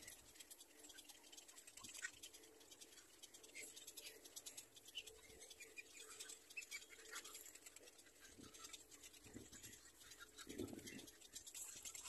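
Near silence: faint outdoor ambience with soft scattered ticks and rustles.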